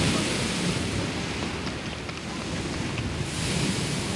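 Sea waves surging and splashing against a concrete sea wall, with wind buffeting the microphone. The surf swells loudest at the start and again about three and a half seconds in.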